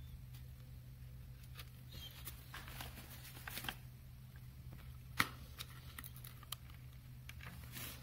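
Handling noise from a 9-volt battery and a cardboard box: scattered scrapes and light clicks, with one sharp click about five seconds in, over a steady low hum.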